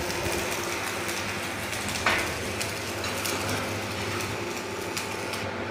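Workshop machinery noise: a steady machine hum with a single sharp knock about two seconds in.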